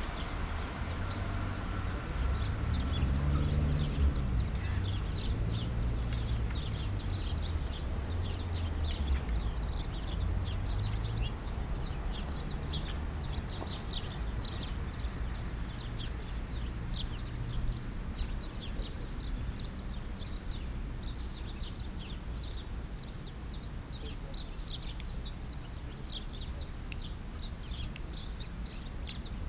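Small birds chirping over and over, many short high calls. A low rumble is also heard, strongest in the first dozen seconds and then fading.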